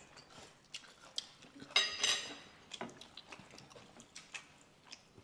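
Quiet table sounds of eating: chopsticks clicking against a ceramic plate and soft chewing, with a brief, brighter clatter about two seconds in as the chopsticks are set down on the plate.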